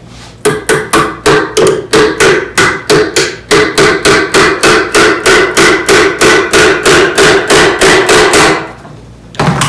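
Claw hammer driving a nail through a fence clip into a rough-lumber wooden marten box, with rapid even blows of about three or four a second and a ring after each blow. The hammering pauses briefly about three and a half seconds in, and a single knock follows after it stops near the end.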